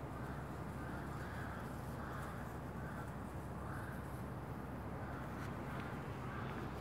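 A bird calling over and over in short notes, about one or two a second, over a steady low background hum.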